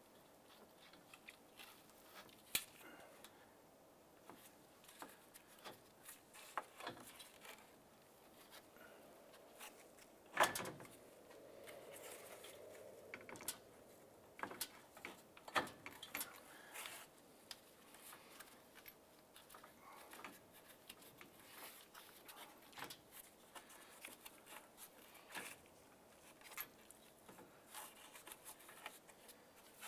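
Faint clicks, knocks and rubbing of plastic and rubber parts as a Ford Fiesta radiator is worked by gloved hands into place against the A/C condenser, its bottom posts being fitted into rubber bushings. The loudest knock comes about ten seconds in, followed by a short stretch of soft rubbing.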